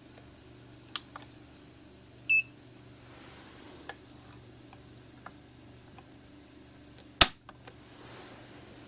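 A trigger pull gauge test on a K31 Swiss straight-pull rifle, dry-fired on an empty chamber. There are a few small handling clicks and a short electronic beep from the digital gauge about two seconds in. About seven seconds in comes a single sharp metallic snap as the trigger breaks and the striker falls.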